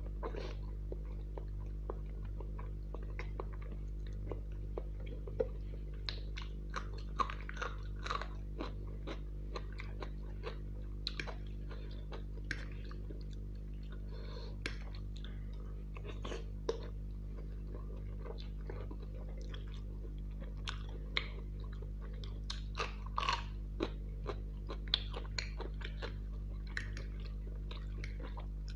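Close-miked chewing and biting of a mouthful of chicken Maggi noodles, with many short wet clicks and smacks scattered throughout. A steady low hum runs underneath.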